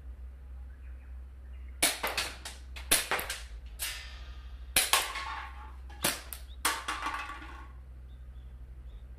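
Marushin gas-blowback Nambu Type 14 airsoft pistol firing a string of about six shots over some five seconds, each sharp crack followed by a short clatter.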